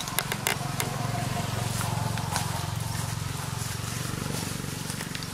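Low engine hum of a vehicle that swells around the middle and fades toward the end, with a few sharp clicks in the first second.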